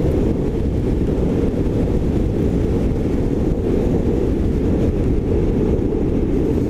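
Steady loud rush of wind buffeting the microphone while riding an electric sportbike along a street.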